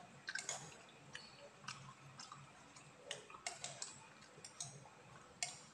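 A spoon clicking and scraping against a plate as food is scooped up: a series of short, sharp clicks at uneven intervals.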